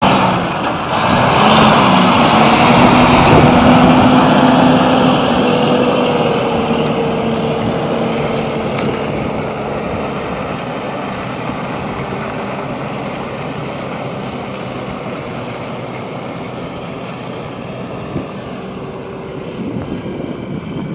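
Peterbilt 379 log truck's Detroit Diesel Series 60 inline-six pulling a loaded log trailer away, the engine note rising slightly as it gets under way and then fading gradually as the truck moves off into the distance.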